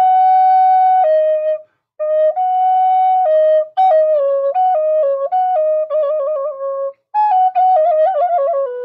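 Wooden Native American flute playing a slow melody in four phrases with short breath breaks between them, the later phrases decorated with quick trills. The tune is a Pueblo morning song, a song to greet the day.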